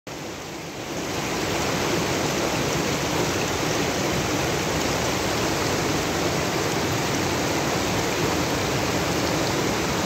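Shallow rocky mountain stream rushing steadily over stones, growing louder over the first second or so.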